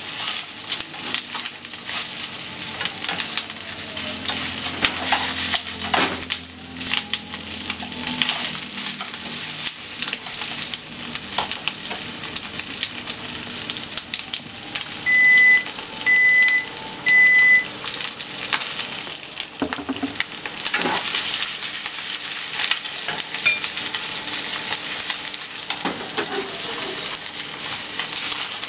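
Chicken thigh pieces sizzling and crackling as they fry in oil in a non-stick frying pan, with scraping and clicks as wooden chopsticks stir and turn them. About halfway through, three short high electronic beeps sound about a second apart, louder than the frying.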